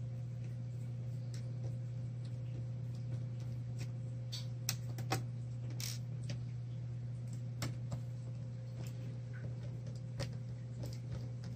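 Small Phillips screwdriver working out the screws that hold a laptop screen: scattered light clicks and taps, most of them in the middle of the stretch, over a steady low hum.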